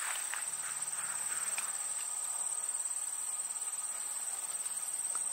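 Insect chorus in a dry corn field: a steady, high-pitched trill that never breaks. A few faint rustles of dry corn leaves come in the first two seconds.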